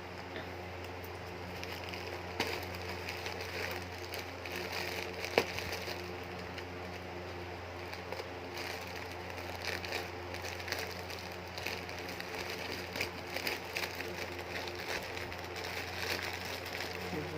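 A plastic mailer and packaging crinkling and rustling as a parcel is opened by hand, with scattered small clicks and tears. A steady low hum runs underneath.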